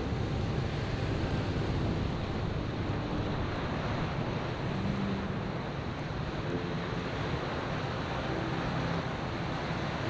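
Ocean surf: waves breaking and washing in, a steady rushing noise.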